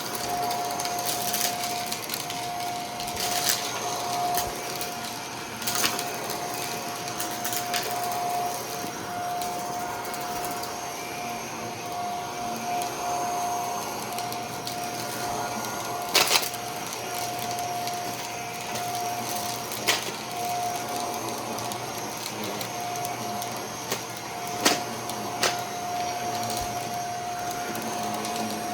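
Vacuum cleaner running steadily with a constant whine, with sharp clicks and rattles every few seconds as hard debris is sucked up.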